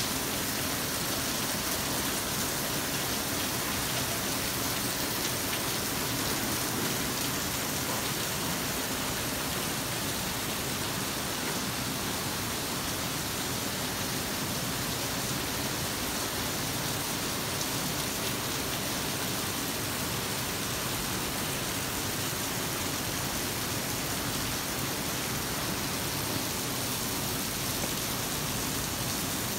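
Steady rain falling: an even hiss.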